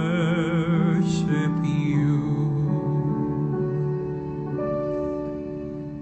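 Music: a man's singing voice holds the song's final note with a wide vibrato, ending about two seconds in. The accompanying chord then rings on and slowly fades.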